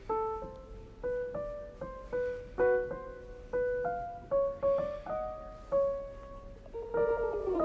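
Background music: a piano-like keyboard playing a simple melody, one note at a time, about two or three notes a second.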